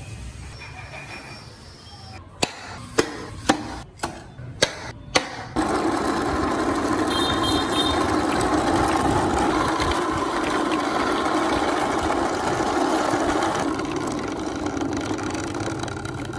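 Six sharp clicks about half a second apart, then a motor starts suddenly and runs steadily.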